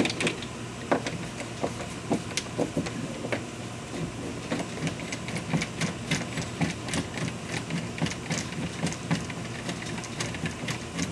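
Deadbolt mounting screws being backed out of the lock through the door, making a run of small irregular metal clicks and scrapes, a few a second.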